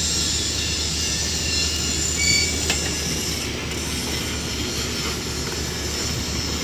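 Manitowoc 8500 crawler crane travelling on its steel tracks: a steady engine drone under the rattle and squeak of the track shoes, with a short high squeal about two seconds in and a sharp click just after.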